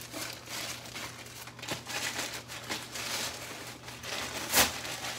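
Grey plastic poly mailer bag crinkling and rustling as it is torn open and handled, with one sharp loud snap near the end.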